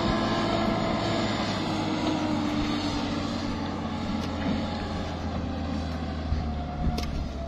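Engine of a truck carrying a cable tool drilling rig, running as the truck drives slowly away, its note falling gradually. There is a single sharp click near the end.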